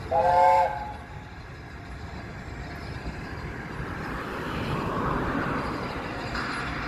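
A steam locomotive whistle blows once, briefly, as a chord of several notes, followed by the low rumble of the A1 Pacific steam locomotive Tornado approaching, growing slightly louder near the end.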